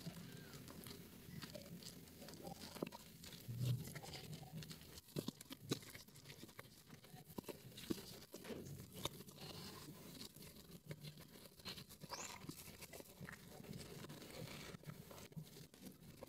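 Hands squeezing and kneading soaked, mushy soap lather in a bowl, making soft, irregular wet squelches and crackles.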